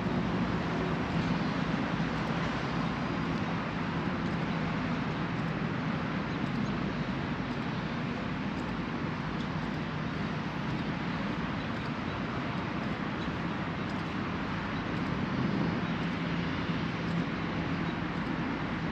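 Steady outdoor city ambience: a continuous low hum and hiss of distant traffic, with no distinct events.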